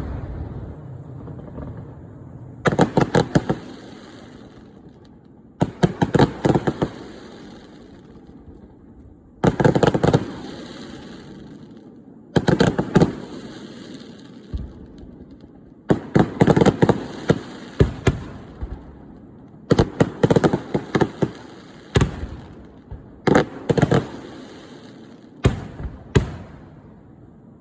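Fireworks display: aerial shells bursting in clusters every few seconds, each a quick run of sharp bangs and crackles followed by a low rumble.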